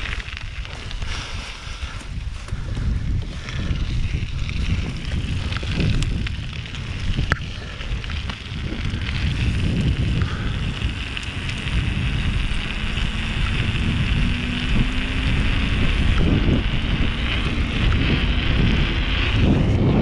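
Wind rushing and buffeting over the microphone of a mountain bike's ride camera during a fast downhill run, mixed with tyre and trail noise and a couple of sharp knocks. It gets louder in the second half.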